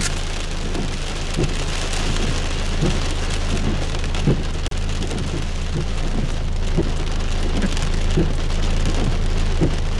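Heavy rain mixed with pea-sized hail pelting down, a dense steady hiss broken by many irregular sharp taps of stones striking. A steady low hum runs underneath.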